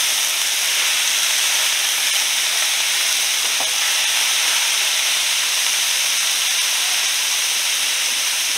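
Raw ground beef sizzling steadily in a hot frying pan, just added to the pan.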